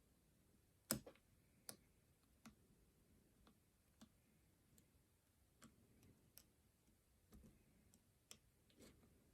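Faint, irregular clicks of a half-diamond pick working the pins of a Lockwood 215 lock with a JA keyway, with one sharper click about a second in.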